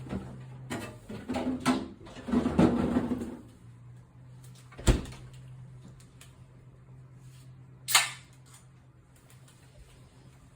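Cookware being handled: a run of knocks and clatters, a louder scraping rush about two seconds in, then two sharp clicks, over a steady low hum.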